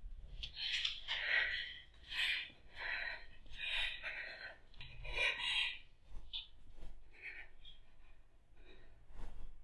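A woman breathing hard in loud gasping breaths, about one a second, growing fainter after about six seconds.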